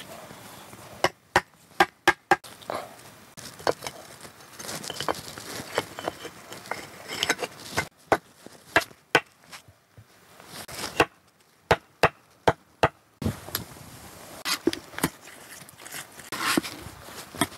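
Flat stones for an ondol floor clacking and knocking against one another as they are set by hand into wet mud. The sharp knocks come in irregular clusters with short pauses, with some scraping between them.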